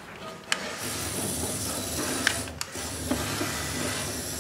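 Small geared DC drive motor of a homemade RC truck whirring steadily, run from the radio transmitter, starting about a second in. A few light plastic clicks from handling come before it.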